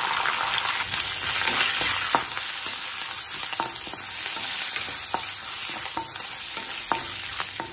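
Peanuts, cashews and curry leaves frying in hot oil in an iron kadai, sizzling steadily, while a wooden spatula stirs them, with a few light knocks and scrapes against the pan.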